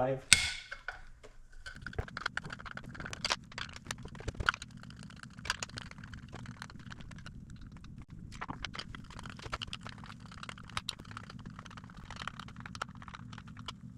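Scattered irregular clicks and metal ticks of a hand tool working the Torx T25 bolts on a Stihl MS400C chainsaw's muffler. A low steady hum comes in about two seconds in.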